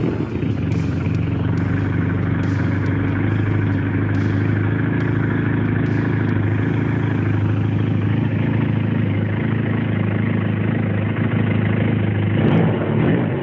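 Honda CBR 450 SR's 447 cc two-cylinder engine running steadily, with a brief swell near the end.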